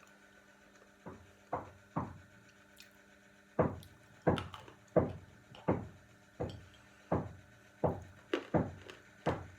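Sandy edible chalk (peschanka) being bitten and chewed close to the microphone: a few crunches, then steady crunching about once every 0.7 s from about three and a half seconds in.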